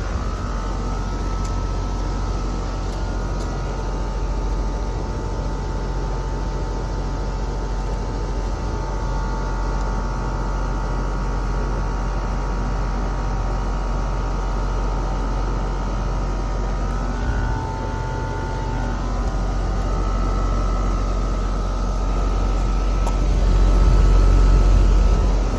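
New air conditioner's outdoor unit running: a steady low hum from the compressor and fan, with a whine of several steady tones above it. It grows louder near the end.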